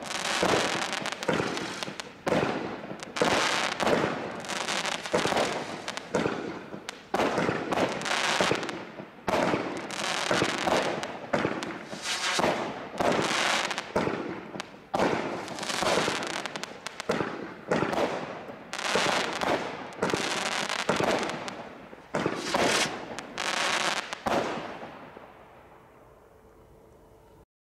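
Bright Star Seismic Strike 61-shot firework barrage cake firing: sharp shots and bursts, about one or two a second. The shots stop and the sound fades out about 25 seconds in.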